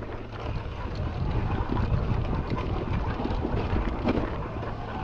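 Wind buffeting the camera microphone while a mountain bike rattles and knocks over rough rock, with irregular knocks throughout.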